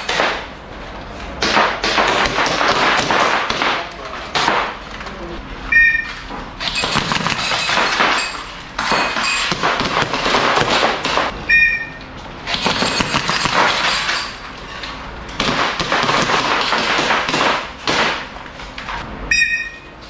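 A line of airsoft gas blowback pistols firing together in rapid overlapping volleys of sharp shots, each volley lasting a few seconds. Three times a short electronic beep sounds, and a new volley follows it.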